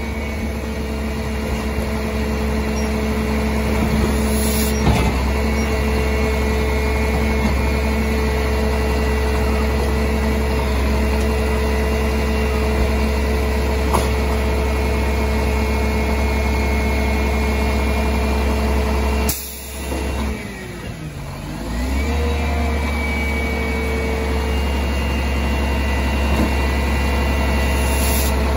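Mack rear-loading garbage truck's diesel engine running steadily with a low rumble and hum while its tipper lifts a dumpster and holds it upside down over the hopper. There is a sharp knock about five seconds in and another near the middle. About two-thirds of the way through, the engine sound briefly drops away, its pitch sinking and then climbing back up.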